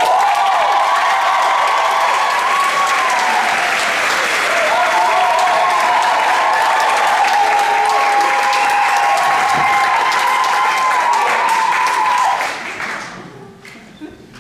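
Theatre audience applauding steadily, the clapping dying away about thirteen seconds in.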